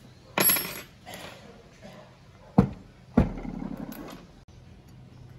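Clatter of a partly reassembled two-stroke chainsaw body being handled on a workbench: a scraping rattle about half a second in, then two sharp knocks a little over half a second apart near the middle, the second followed by a short rattle.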